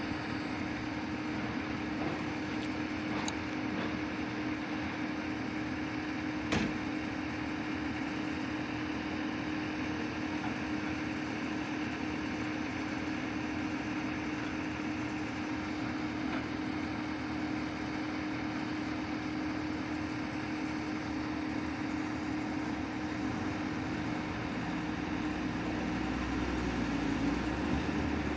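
Kobelco 220 excavator's diesel engine idling steadily with a constant hum, its bucket held raised. A single sharp click comes about six and a half seconds in, and a deeper rumble swells near the end.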